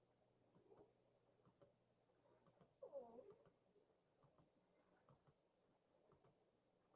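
Near silence: room tone with a few faint scattered clicks and one brief faint pitched sound about three seconds in.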